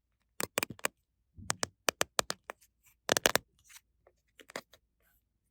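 Small plastic toy pieces clicking and clattering as they are handled, in several quick bursts of sharp taps with short pauses between.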